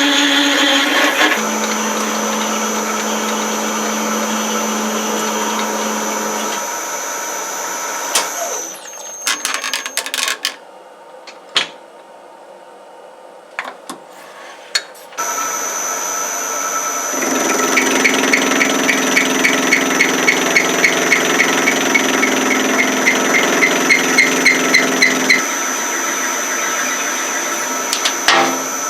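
A workshop machine tool running with a steady high whine, stopping about nine seconds in. A few clicks and knocks follow, then the machine starts again about fifteen seconds in. For several seconds while it runs there is a quick regular ticking, about four a second.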